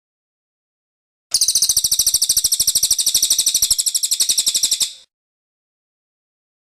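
A cililin bird singing one rapid, high trill of even, fast-repeating notes. It starts a little over a second in and lasts about three and a half seconds.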